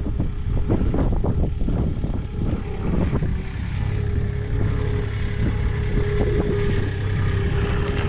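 Engine of a small farm loader running and drawing closer, with wind buffeting the microphone. A steady engine hum comes up about three and a half seconds in.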